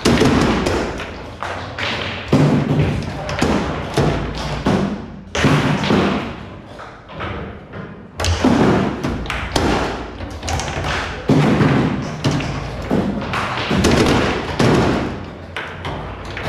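Foosball rally on a Frimm Super Faster table: a rapid, irregular run of sharp knocks and thuds as the ball is struck by the plastic players and the steel rods are jerked and spun.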